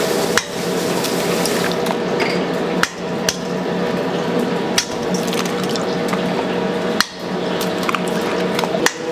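Eggs cracked one after another on the rim of a stainless steel bowl, a sharp crack every couple of seconds as each egg is opened and dropped in. A steady hum of kitchen machinery runs underneath.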